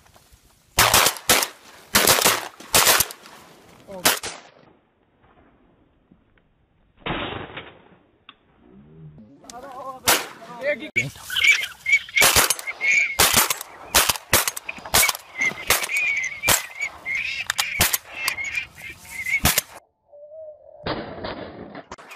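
Shotguns firing at waterfowl: a quick string of sharp blasts in the first few seconds, then after a pause a long run of many shots from about ten seconds in, with a flock of waterfowl calling behind them.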